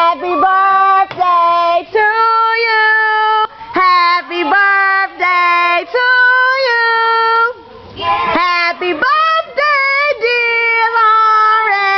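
A girl's high voice, unaccompanied, holding long steady notes one after another with short breaks between them, loud throughout.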